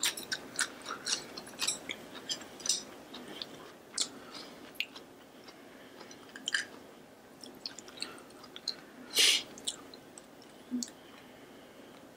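Close-miked chewing and mouth sounds: quick wet smacks and clicks, thick for the first few seconds and then sparser, with one louder noisy burst about nine seconds in.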